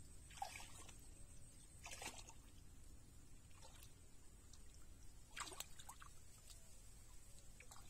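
Faint, scattered small splashes and trickles of water as hands work a net in the shallow muddy water of a flooded rice paddy, a few soft sounds a second or two apart over near silence.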